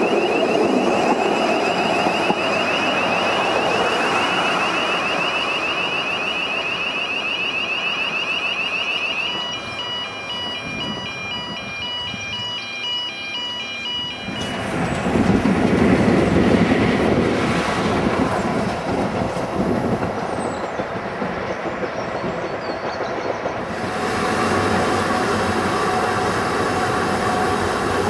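Narrow-gauge railway coaches rolling past on the rails, with a warbling electronic warning alarm for the first nine seconds or so. The alarm then turns into an intermittent beeping pattern and stops about fourteen seconds in. The train's running noise then grows louder, and near the end gives way to the steady ride noise from inside a moving coach.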